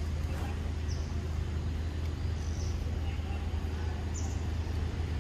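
Steady low hum with three short, high bird chirps, about one, two and a half and four seconds in.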